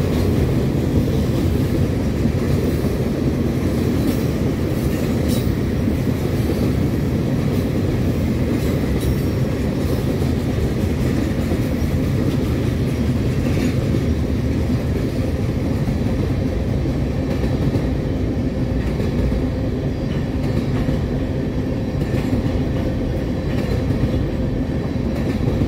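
CSX mixed manifest freight cars rolling past at speed: a steady rumble of steel wheels on rail, with scattered clicks.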